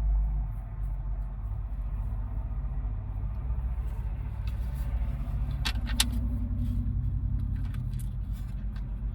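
Steady low rumble with a cluster of sharp clicks and light taps about six seconds in, from hand work on the speaker mounting.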